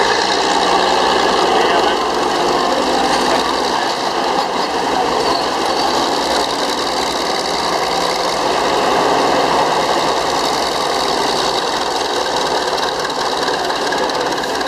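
Northwest Model 6 crawler shovel's Murphy diesel engine running steadily with a rapid clatter, along with the machine's gearing, as the shovel swings its raised dipper round and back to dig.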